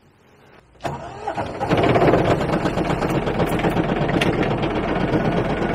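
Van's heater blower fan switched on with a click about a second in, spinning up over about a second and then running steadily with a loud rushing hum.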